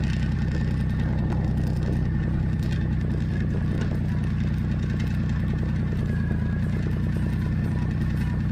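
Motorcycle engine running steadily at low speed, picked up by the rider's on-bike microphone while rolling slowly in traffic.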